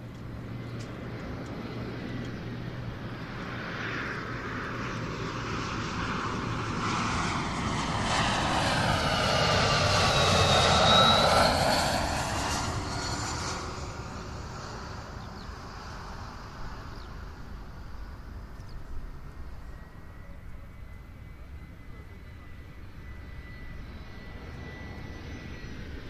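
An airliner flying overhead. Its engine noise builds, is loudest about ten seconds in with a falling whine as it passes, then fades away.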